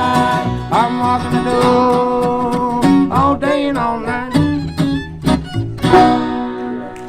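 Acoustic bluegrass band with banjo and guitar playing the end of the song, closing on a last accented chord about six seconds in that rings out and fades.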